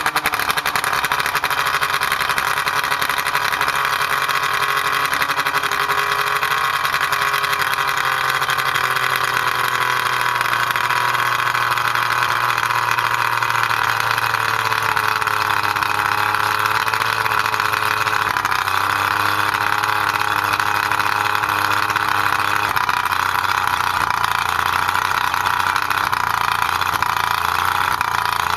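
Johnson 70 hp two-stroke outboard motor idling steadily, run out of the water on a garden-hose flushing attachment. Its speed dips slightly about two-thirds of the way in.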